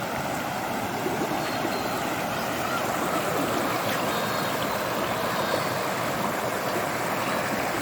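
Steady rush of flowing flash-flood water.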